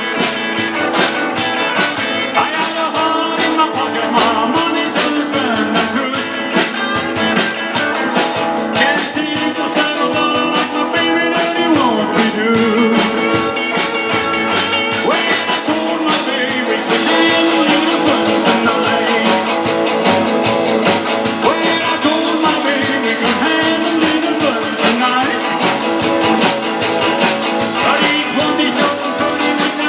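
A rock song with a singing voice over a band and a steady drum beat.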